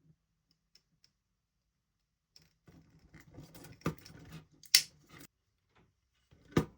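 Hands handling small parts and a toothed limit strap on an RC snowmobile skid: scattered light clicks, then rustling with a sharp click a little before four seconds in and a brief bright snip about a second later.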